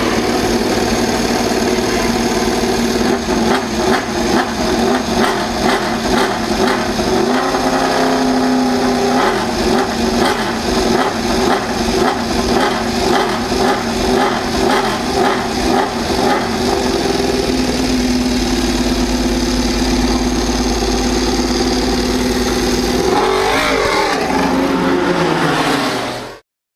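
MotoGP racing motorcycle engine running close up. It is revved in quick repeated blips through the first half, with revs rising around eight seconds in and again near the end. The sound cuts off abruptly just before the end.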